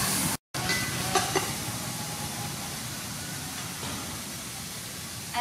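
Yellow herb paste and leaves frying in oil in an aluminium pot: a steady sizzling hiss that cuts out for an instant near the start, with a couple of light metal ladle clinks about a second in.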